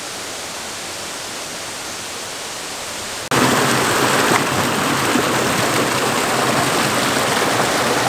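Steady rush of flowing water. About three seconds in it cuts suddenly to a louder, brighter rush of water spilling from a channel outlet and splashing into a pool.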